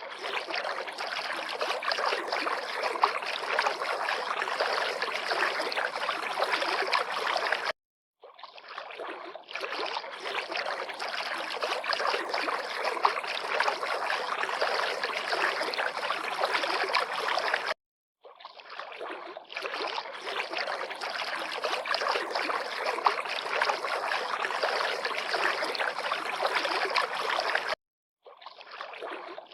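River water lapping and flowing in a steady, dense rush. It cuts out abruptly for about half a second three times, about ten seconds apart, where the recording loops.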